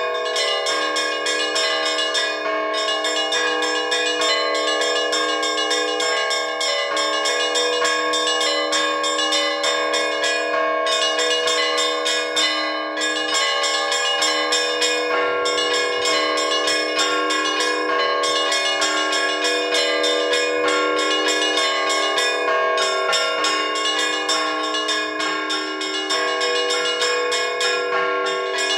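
Orthodox church bells rung by hand from a belfry, many bells at once: quick, rhythmic runs of strikes over the long ringing tones of the larger bells. This is ringing for vespers at the all-night vigil.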